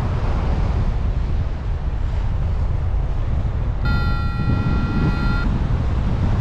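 Wind buffeting the microphone during a paraglider flight, a dense, steady rumble. About four seconds in, a steady electronic tone sounds for about a second and a half.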